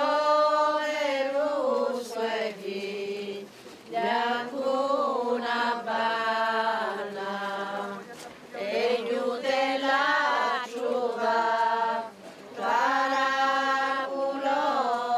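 Slow sung chant: voices singing long, drawn-out phrases of a few seconds each, separated by brief pauses.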